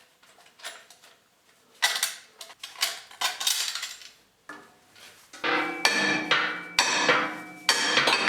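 Steel parts of an old belt grinder's safety shield clanking, knocking and scraping as the shield is worked loose and taken off. It starts with a few scattered knocks, and the clatter becomes denser and rings in the last few seconds.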